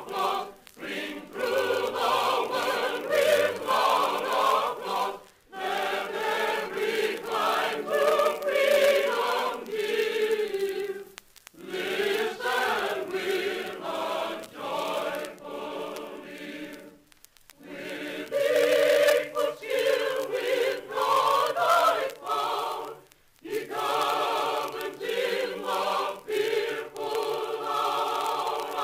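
A mixed chorus singing, heard on an old recording. The song goes in phrases of about six seconds, with short breaks between them.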